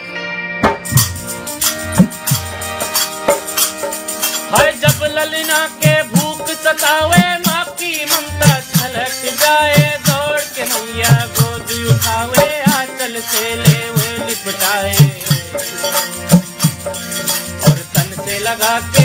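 Fiji bhajan music on dholak and harmonium: dense, fast drum strokes and steady harmonium chords with a rattling percussion keeping time. About four and a half seconds in, a voice joins, singing a wavering melody over the instruments.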